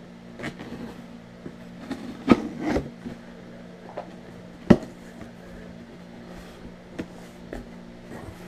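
Packing tape on a cardboard mailing box being cut with a knife and the flaps pulled open: a handful of scattered sharp scrapes and cardboard snaps, the loudest a little over two seconds in and just under five seconds in, over a steady low hum.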